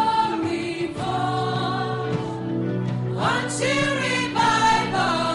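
Small gospel choir and lead singer singing a slow prayer song in call-and-response, their voices wavering with vibrato over a sustained low note.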